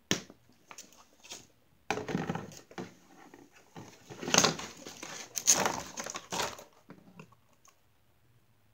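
Stiff clear plastic doll packaging crinkling and crackling in irregular bursts as it is cut and pulled apart by hand, with a sharp scissor snip at the start.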